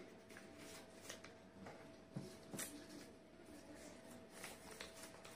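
Near silence with faint paper rustling and a few soft clicks as sheets of drawing paper are handled, over a faint steady hum.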